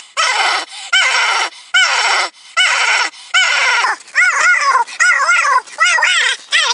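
A man screaming in high, strained falsetto, in about eight separate bursts: the first few fall in pitch, and the later ones warble quickly up and down.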